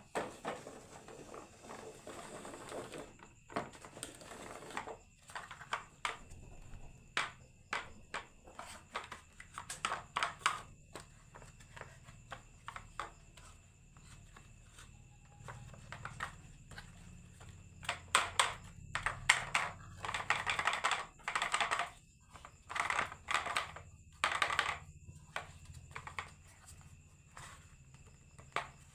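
Marbles clicking and clattering down a wooden marble run, in irregular bursts of rattling clicks, busiest past the middle.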